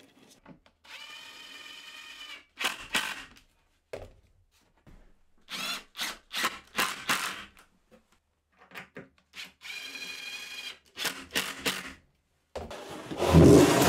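Bosch cordless impact driver driving screws into OSB panels: two runs of steady whirring, about a second in and again near ten seconds, with short knocks in between.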